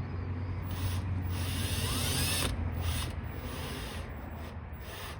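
A screw being driven into the outdoor outlet's weatherproof cover box: grinding and scraping of the screw turning in, loudest in the first half, with a few short squeaks.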